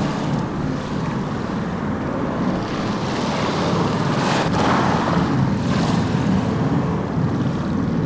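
Surf washing onto a sandy beach, with wind rumbling on the microphone; the wash swells a few times.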